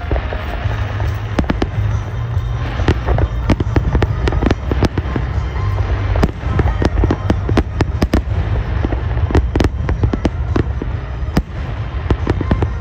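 Aerial firework shells bursting in rapid succession: a dense barrage of bangs, several a second, over a steady low rumble.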